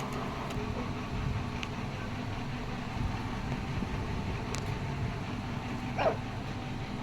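Steady low mechanical hum, with a brief sliding sound about six seconds in.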